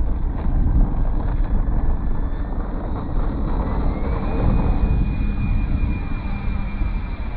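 RC electric ducted-fan jet flying overhead, its fan whine climbing in pitch about four seconds in as the throttle is opened, then holding steady. Heavy gusty wind rumble on the microphone runs underneath.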